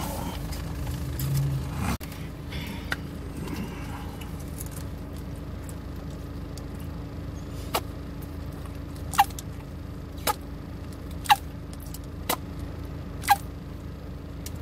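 Plastic squeeze bottle of mayonnaise squirting and sputtering: six sharp squelches about a second apart, each dropping in pitch, over a steady low hum.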